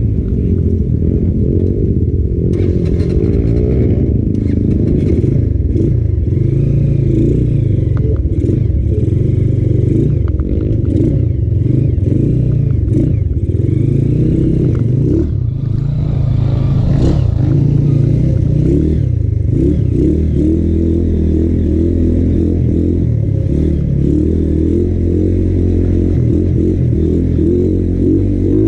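Honda Win motorcycle's single-cylinder engine running as the bike is ridden over a rough dirt trail, with clattering from the bike over the bumps.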